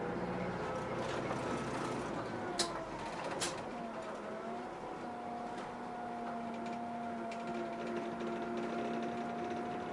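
Route bus running along the road, heard from inside at the front: a steady drivetrain hum with a whine that dips in pitch a few seconds in and then holds steady. Two sharp clicks sound just before the dip.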